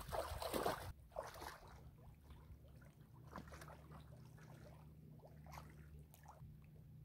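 Footsteps wading through shallow lake water: sloshing and splashing, loudest in the first second, then fainter, scattered splashes as the wader moves away. A low steady rumble runs underneath.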